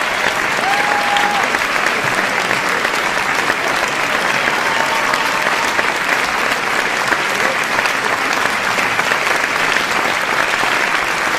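A large audience applauding steadily and densely, with a few brief shouts from the crowd rising over the clapping.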